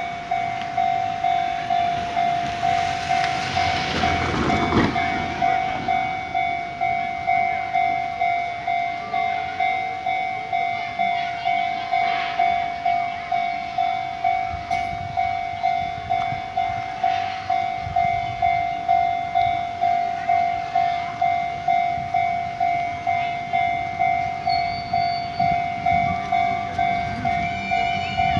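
Railway level-crossing warning bell dinging in an even, rapid rhythm, signalling that a train is approaching. A vehicle passes close by about four seconds in.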